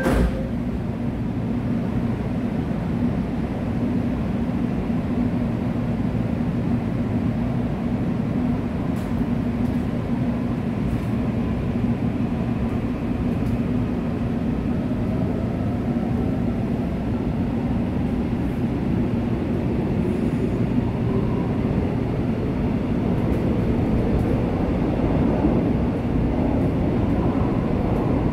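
Interior of a Korail Suin–Bundang Line electric train as it pulls away: steady rumble of wheels on rail. Over the second half a motor whine rises slowly in pitch as the train picks up speed.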